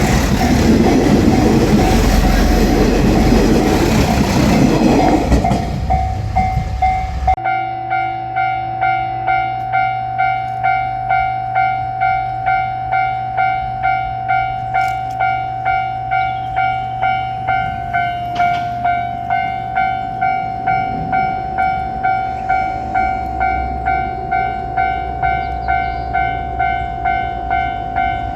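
A train passes close by with loud rumbling and wheel clatter. About seven seconds in, the sound cuts off suddenly and a Japanese level-crossing warning bell takes over, ringing its steady two-tone clang about twice a second.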